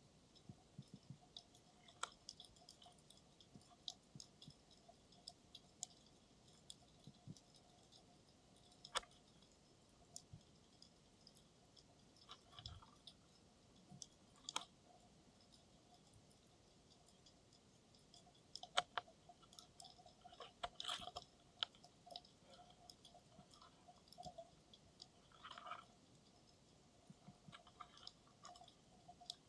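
Faint, scattered clicks and crackles heard underwater, coming at irregular intervals and thickening into a cluster about two-thirds of the way through.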